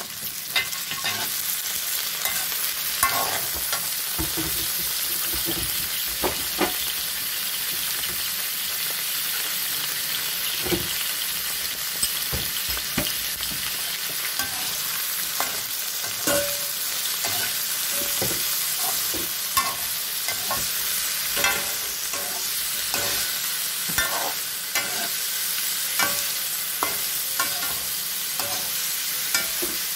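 Potato, carrot and bell pepper pieces sizzling steadily in hot oil in a metal wok, stirred with a perforated metal spatula that scrapes and knocks against the pan at irregular moments.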